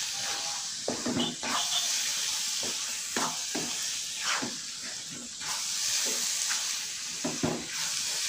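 A spatula stirring and scraping a thick mixture of pineapple, grated coconut, sugar and roasted semolina in a nonstick kadai, with irregular scrapes and light knocks over a steady hiss. The mixture is being cooked down until the liquid is absorbed and it can be rolled by hand.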